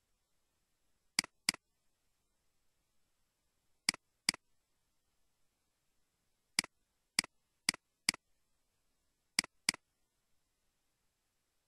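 Computer mouse button clicking, mostly in quick double-clicks about a third of a second apart, as folders are opened one after another; about ten sharp clicks in all.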